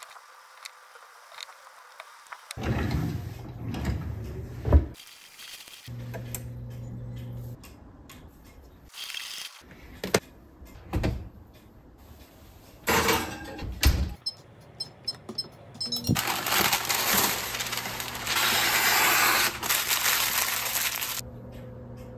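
A string of short kitchen sounds cut together: dough handled in a ceramic bowl, then sharp metal clanks as a heavy lidded Dutch oven is set on the oven rack, with stretches of steady low hum and a long hiss near the end.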